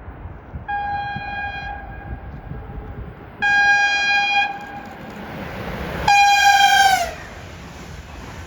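Train horn sounding three blasts on one steady pitch, a short quieter one and then two loud ones, the last falling in pitch as it cuts off; the rumble of the train builds underneath.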